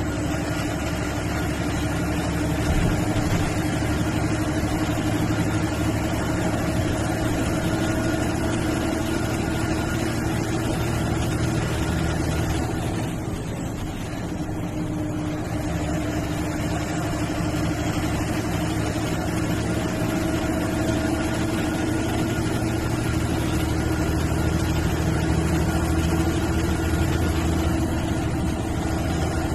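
MSRTC bus's diesel engine running under way with road noise, heard from inside the cabin: a steady drone that eases off briefly about halfway through, then picks up again.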